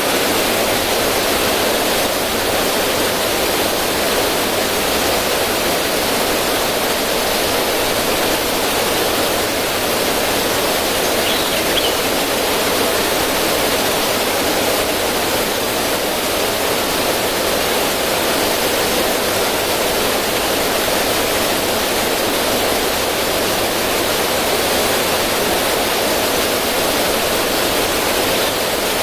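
River water rushing and splashing over rocks in a small cascade, a steady, unchanging roar of running water.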